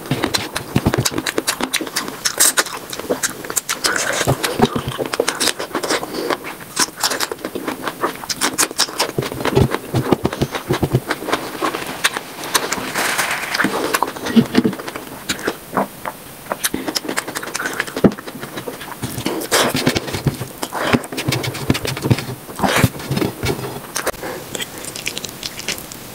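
Sped-up mukbang eating sounds at triple speed: rapid, clicky wet chewing and mouth smacking, with fingers scraping rice across a steel plate.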